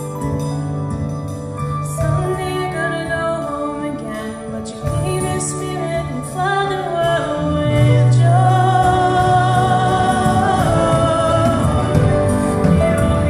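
Live band performing a contemporary Christian pop song: a woman singing lead over electric bass, drum kit and acoustic guitar. A second woman's voice joins partway through and the music grows louder.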